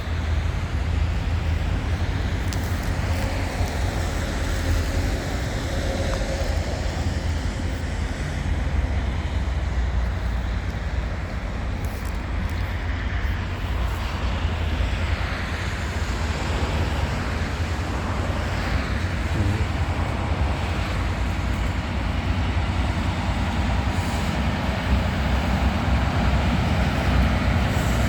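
Diesel engine of an HŽ series 2041 'Đuran' shunting locomotive running steadily, a deep, even rumble.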